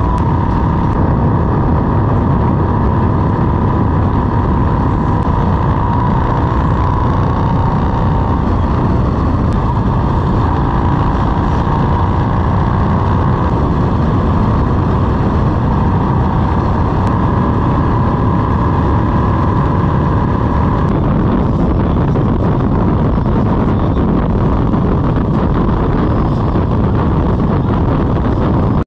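Motorcycle cruising at highway speed: steady, loud wind rush over the bike-mounted microphone with engine and road noise underneath.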